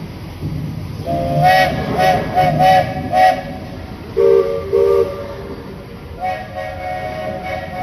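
Steam locomotive chime whistles of two different pitches. A higher whistle gives a run of about five short toots, a lower whistle answers with two short blasts, then the higher whistle sounds a longer blast near the end.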